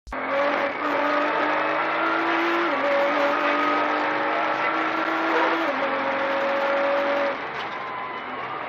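Car engine running at a sustained high note over road and wind noise, its pitch stepping down twice along the way; the sound drops in level about seven seconds in.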